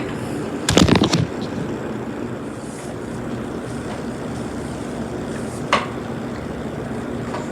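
Ceiling fan running with a steady hum. A quick cluster of loud clicks and knocks comes about a second in, and a single click near the six-second mark.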